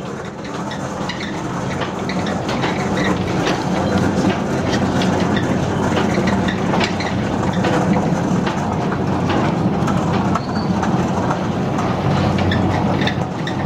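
Rail wagons rolling along track, the wheels clattering steadily over the rails. The sound fades in over the first couple of seconds.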